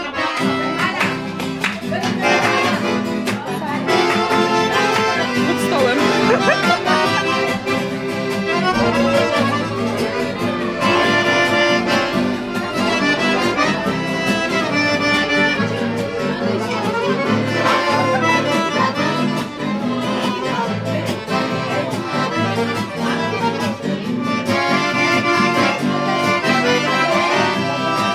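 Accordion playing a tune in held chords over a steady rhythmic bass.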